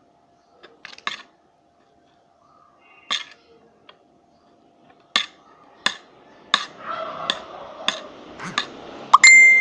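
Metal eating utensils clinking against dishes: a few scattered sharp clinks, then about one every 0.7 s over a rising clatter. One strike near the end rings on briefly like glass or ceramic.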